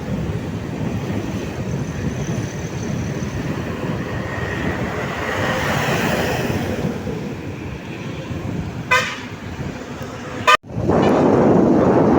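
Steady traffic and road noise, with a short vehicle horn toot about nine seconds in and another brief toot about a second later. The noise drops out for an instant and then comes back louder.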